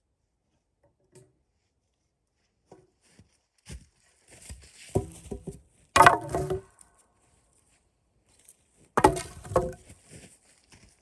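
Wood being knocked and cracked: two clusters of sharp cracks and knocks, the loudest about halfway through and another near the end, with a few faint ticks between.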